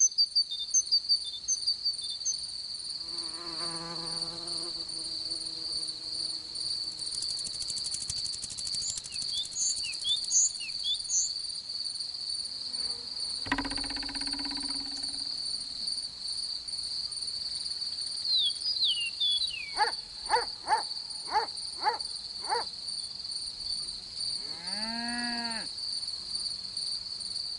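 Crickets chirring in a steady, high, unbroken trill. A few short chirps, a thump, a quick row of clicks and a swooping sound come over it at times.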